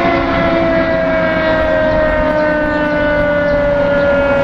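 Fire engine's Federal Q mechanical siren winding down: one long tone sliding slowly and steadily lower in pitch, over traffic noise.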